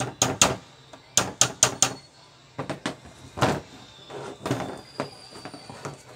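Hammer tapping on a wall fan's electric motor: a quick run of about seven sharp knocks in two groups over the first two seconds. After that come irregular clunks and clacks as the motor and its plastic bracket and housing parts are handled and fitted together.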